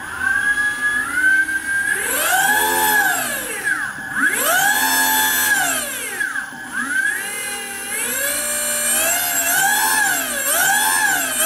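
Electric motor of a motorcycle conversion spinning freely with no chain fitted, revved on the throttle. Its whine rises and falls in pitch, two long sweeps and then several quicker ones, over a steady high tone underneath.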